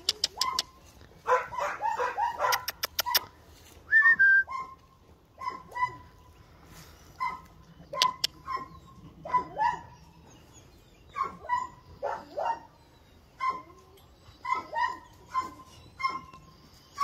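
A dog giving short, high-pitched yelping barks over and over, about one every second or so, with a few sharp clicks among them.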